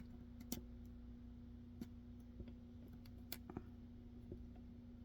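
Faint, sparse clicks of a hook pick working the pin stacks of a pin-tumbler lock held under tension, about eight light ticks at irregular intervals as pins are probed and set.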